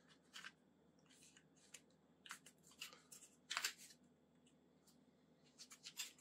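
Faint, scattered clicks and scrapes of hard plastic as the back attachment of a Samsung Galaxy S23 Ultra Rugged Gadget Case is slid off and the card holder fitted in its place. The loudest scrape comes about three and a half seconds in.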